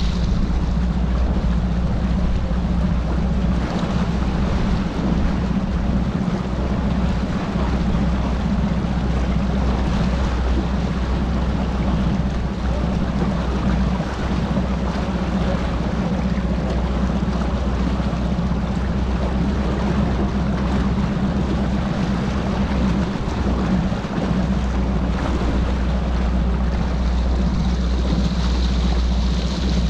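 Bass boat's outboard motor running steadily at idle speed, with water washing along the hull and wind on the microphone.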